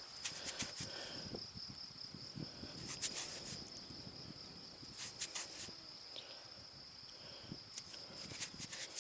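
A cricket trilling steadily at a single high pitch, with a few faint clicks and rustles scattered through it.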